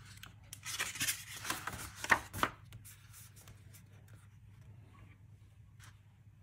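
A page of a paper instruction booklet being turned. The paper rustles for about two seconds, with two sharp flicks of the page near the end of the turn, then only faint handling.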